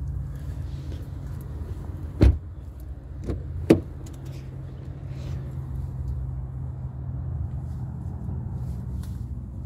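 A car door of a 2017 BMW X3 shutting with a loud thud about two seconds in, then sharper clicks of a door latch about a second and a half later as the front door is opened, over a steady low hum.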